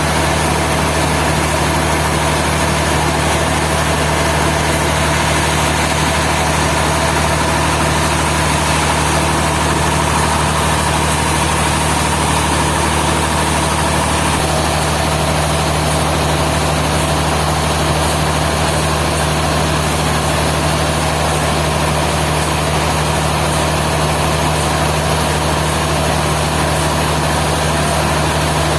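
A heavy engine running steadily at a constant speed, with a slight shift in its tone about halfway through.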